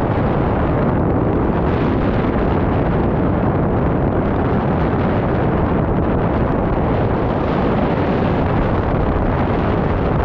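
Loud, steady wind buffeting a GoPro's microphone, from the airflow of a paraglider in flight.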